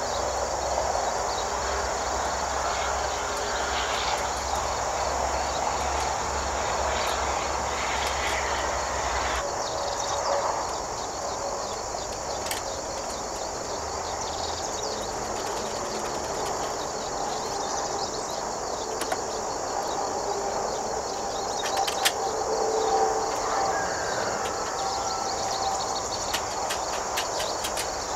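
Steady high trilling of insects, with scattered sharp metal clinks and taps as galvanized sheet-steel nest-box panels are handled and fitted together; the loudest clink comes about two-thirds of the way through, and a quick run of light ticks near the end.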